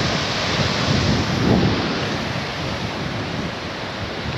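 Wind buffeting the microphone outdoors: a steady rushing hiss over an uneven low rumble, with a stronger gust about a second and a half in.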